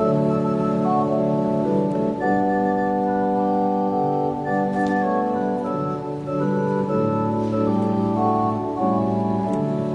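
Organ playing slow, sustained chords, the held notes changing every second or so.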